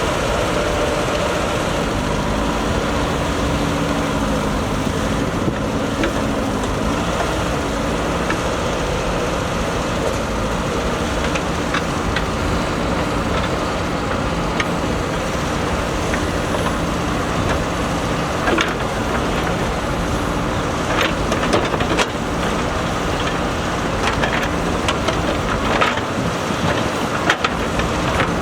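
JCB backhoe loader's diesel engine running steadily while working, its pitch shifting a few seconds in. Scattered knocks and clanks come through in the second half.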